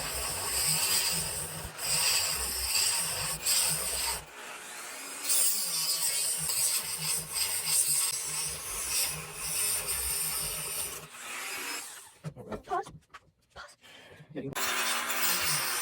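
Pine block being carved out by hand, a tool scraping and chipping into the wood in repeated strokes, with a pause of about two seconds near the end.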